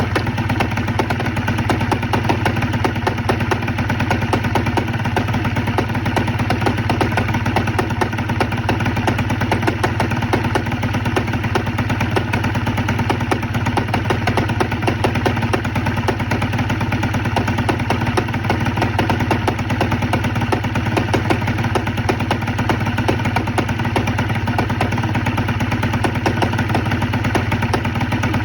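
Gilera Runner scooter engine idling steadily with a repetitive knock, the cause of which the owner does not know.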